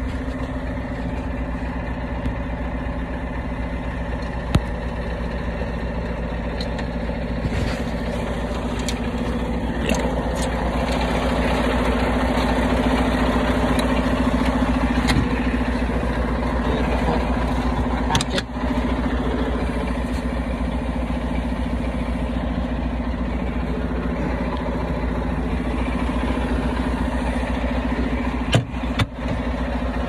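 Semi-truck diesel engine idling steadily with a low hum, with a few sharp knocks over it.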